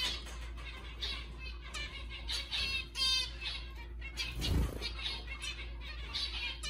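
Zebra finches calling: short, high, nasal notes repeated every half second or so, with a fast buzzy rattle of notes about three seconds in. A low thump comes at about four and a half seconds.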